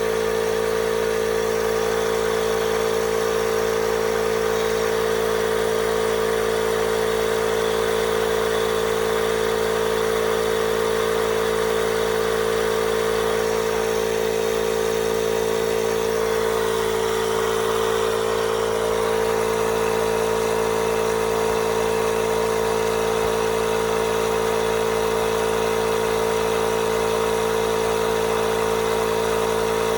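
Portable tire inflator running steadily with a constant droning hum, pumping a tire up toward about 35 psi.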